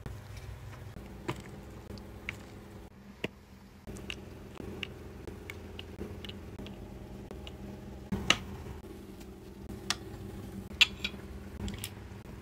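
Small plastic doll accessories (shoes, hangers, stands) being handled and set down by hand, giving scattered light clicks and taps over a faint steady hum.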